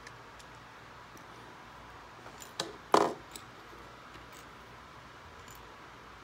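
Plastic Lego pieces clicking and knocking against a tabletop as a partly built model is handled and set down: a small click, then one sharper clack about three seconds in, with a few faint ticks around them.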